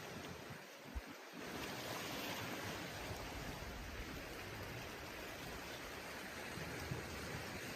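Steady rush of water, an even hiss with no rhythm, with a brief soft knock about a second in.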